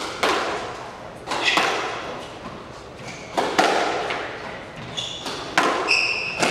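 Squash rally: the ball cracking off the rackets and the court walls every second or so, each hit ringing in the hall. Shoes squeak briefly on the court floor near the end.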